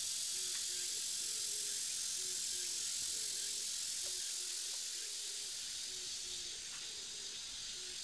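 Steady high, hissing chorus of summer insects over a field, with a faint low two-note call repeating every second or two.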